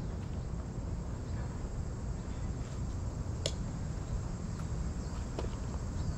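Crickets trilling steadily in a thin high tone over a low rumble, with one sharp click about three and a half seconds in.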